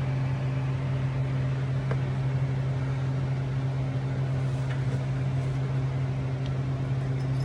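Welding machine humming steadily at idle, a low even electrical hum with its cooling fan, before the arc is struck for a tack weld.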